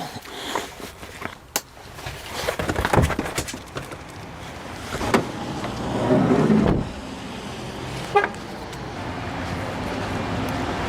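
A motor vehicle engine running, swelling into a louder low rumble about six seconds in, then settling to a steady hum.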